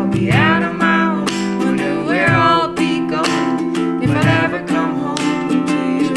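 Acoustic folk-pop: a ukulele strumming chords while a woman sings, with soft low mallet-drum hits about every two seconds.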